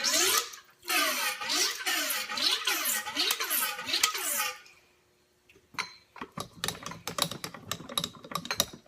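Damper rod of a KYB fork cartridge pumped by hand, forcing fork oil through the valving with a squelching rush that rises and falls in pitch about twice a second for about four seconds. After a short pause comes a quick, irregular patter of ticks as the oil drips out.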